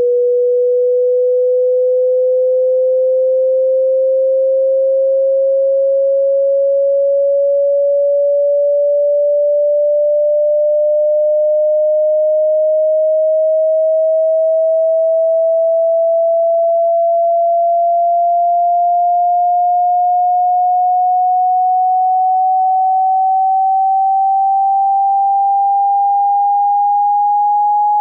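Pure sine test tone of a hearing-test frequency sweep, gliding slowly and steadily upward in pitch at an even level.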